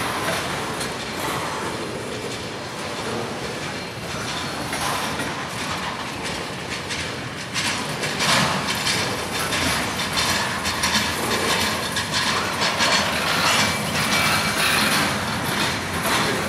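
Railroad cars rolling past, their wheels clattering over the rail joints; the clatter gets louder and busier about halfway through.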